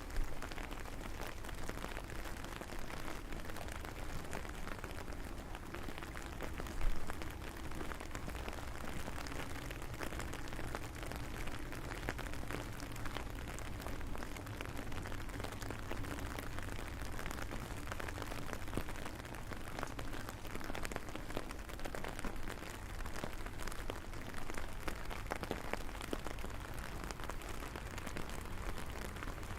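Steady rain falling, an even hiss with a dense patter of small drop ticks. There is one brief louder sound about seven seconds in.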